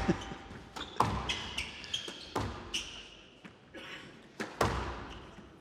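Squash ball struck by rackets and hitting the court walls, a sharp crack about every one to two seconds with a ringing echo. Short high squeaks of shoes on the court floor come in between the shots.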